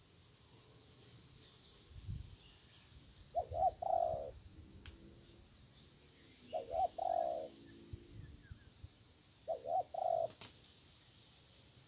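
Spotted dove cooing: three phrases about three seconds apart, each of two short notes followed by a longer held note.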